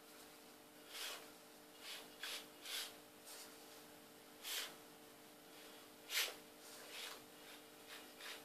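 Custom Losi Micro crawler RC truck's small electric motor and gear train running in short throttle blips as it crawls over blocks: about ten brief, faint whirs, the loudest about six seconds in.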